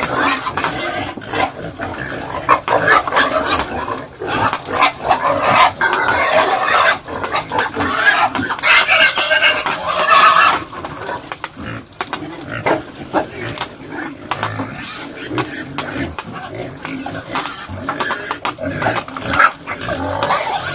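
Pigs grunting and squealing, mixed with many short clicks and knocks. A louder, shrill stretch of squealing comes about eight seconds in and lasts about two seconds.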